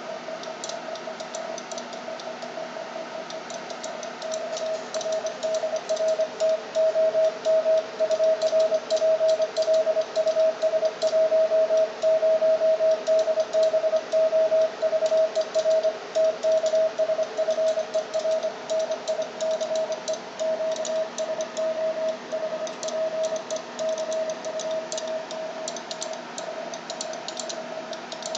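Morse code on an HF amateur radio transceiver in CW mode on the 17-metre band: a steady beeping tone keyed on and off, louder from about four seconds in until about twenty seconds. Fast light clicking runs over it.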